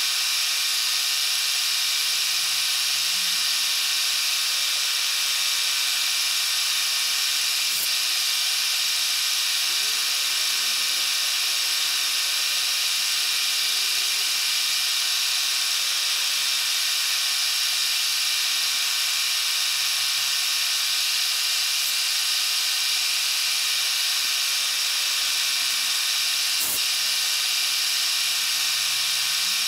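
Milling machine running steadily while its end mill takes a light cut across a metal plate: a constant hiss with a high whine running through it.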